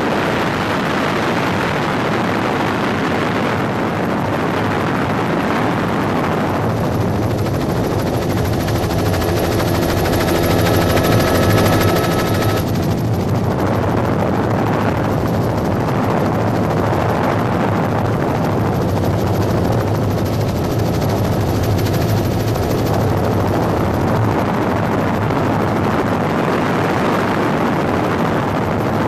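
Helicopter heard from aboard: the steady noise of its rotor and engine runs on without a break. For several seconds a set of steady whining tones rides on top and cuts off suddenly near the middle.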